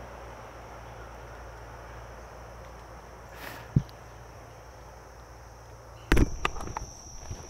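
Footsteps on a woodland trail start about six seconds in, over a steady high insect drone and a low rumble of traffic from a nearby road. A single knock comes a little past the middle.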